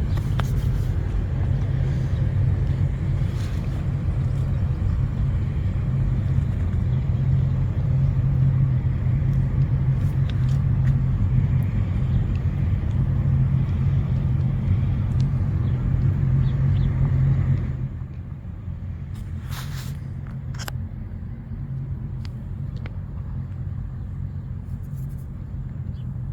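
Steady low outdoor rumble that drops abruptly about 18 seconds in, with a few faint clicks.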